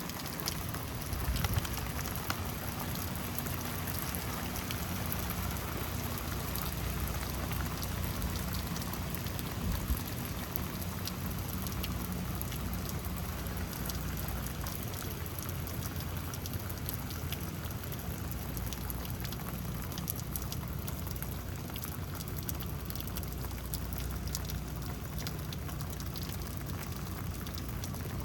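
Steady rain of a thunderstorm falling, with many single drops ticking close by.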